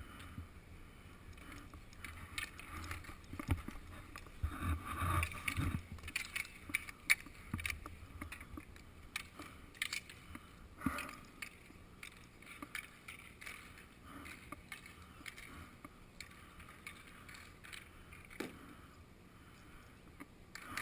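Game sounds of outdoor inline hockey on a concrete rink: skate wheels rolling on concrete and scattered clacks and knocks of sticks and gear. The clacks are busiest in the first third, with one sharp knock about seven seconds in.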